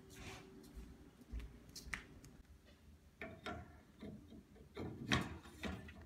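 Scattered light knocks and rustles of handling and movement, coming more often and louder in the second half.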